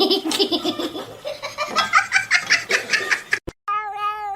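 A person, high-pitched like a child, laughing in quick repeated pulses for about three seconds. After a brief break, a cat starts one long, steady meow near the end.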